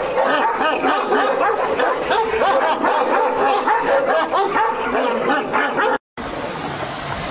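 Dogs barking and yipping, many short high calls overlapping and rising and falling in pitch. About six seconds in it cuts off abruptly, and a steady rush of water follows.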